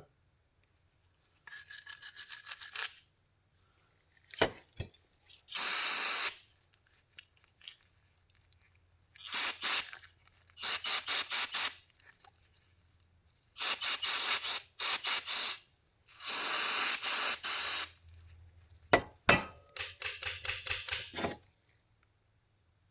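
Repeated bursts of hand scraping and rubbing on a metal part, each lasting one to two seconds with a quick back-and-forth rasp, with a few sharp metal clicks between them.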